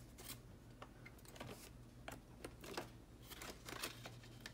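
Paper banknotes rustling and crinkling as cash is handled and tucked into a binder's cash envelope, heard as faint, irregular soft clicks and rustles.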